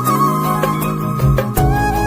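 Background music in an Indian folk style: a flute-like melody over a steady drone with regular drum strokes.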